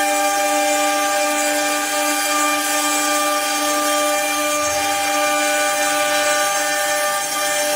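CNC cutting machine running steadily at work, a constant whine of several steady tones over a hiss.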